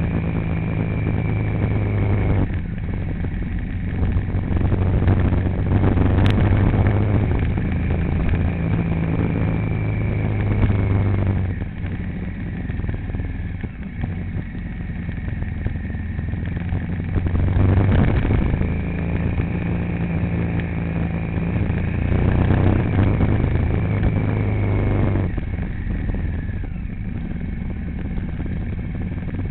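A vehicle engine running while under way, its pitch and loudness shifting several times as it speeds up and eases off.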